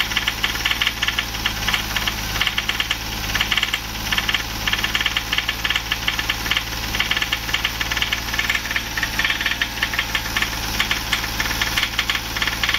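VW Polo 1.2 three-cylinder engine running with the accelerator held, with a rapid, continuous tapping knock over the steady engine note. The mechanic has already set the timing and injectors correctly, and he blames the knock on the rebuilt top end: the top is touching, either through a too-thin aftermarket head gasket or a faulty aftermarket piston.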